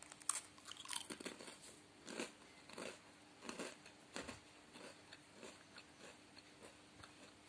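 A person bites into an ultra-thin, sugar-coated Britannia coffee cracker with a few sharp snaps, then chews it. The crunches come faint and even, about one and a half a second, and grow fainter.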